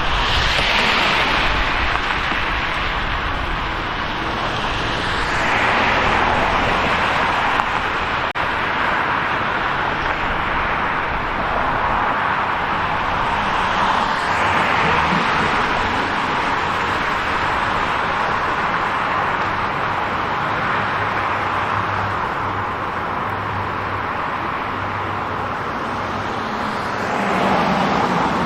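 City street traffic: steady road noise with several cars passing in turn, each swelling up and fading away, about four times.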